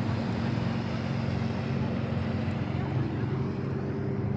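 A boat motor running steadily: an even low hum with a hiss over it.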